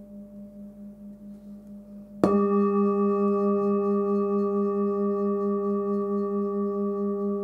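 Hand-forged 19 cm singing bowl pitched at about 199 Hz (G), ringing softly, then struck once about two seconds in and ringing out loudly. Its low hum pulses steadily, with several higher ringing tones above it, and slowly fades.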